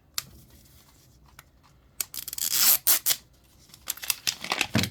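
Wrapper being torn open on a Miniverse capsule ball: a loud tear of about a second, then a run of crinkling and clicking as it is pulled away.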